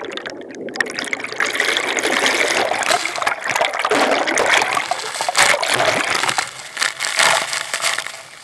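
Waterfall water rushing and splashing, an uneven, surging wash of noise that fades near the end.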